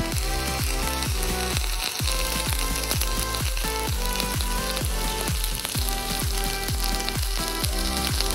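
Steady sizzling of a red-hot metal ball against jelly, under background music with a steady electronic beat.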